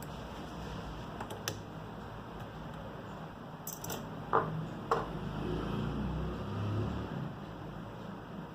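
Scattered small clicks and taps of tools and small parts being handled during a smartphone teardown, with two sharper ticks about four and five seconds in, over a steady low hum.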